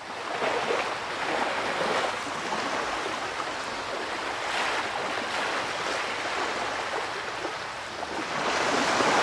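Ocean surf: waves washing in on a shore, the rushing hiss swelling and falling back several times.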